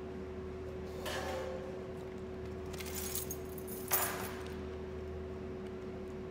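Steady electrical hum with a constant tone, broken by a few brief clinks and jingles about one, three and four seconds in, the last the loudest.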